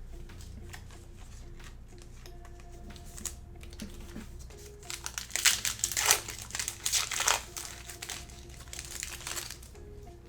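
Trading card pack wrapper being torn open and crinkled in the hands, in a run of crackly bursts about halfway through. Faint background music throughout.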